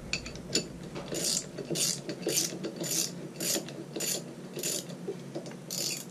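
Hand ratchet wrench clicking in about ten even back-strokes, roughly two a second, as it turns in a 17 mm bolt.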